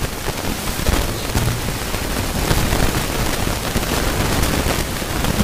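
Loud steady hiss with crackle and scattered clicks, and no clear voice.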